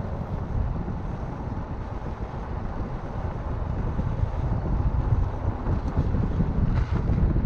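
Wind buffeting the microphone of a camera on a moving fat-tyre recumbent trike, over a low rumble of tyres on the paved road, growing louder toward the end.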